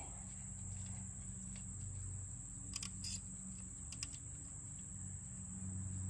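Insects trilling steadily in one high, even tone over a low steady hum, with a few faint clicks in the middle.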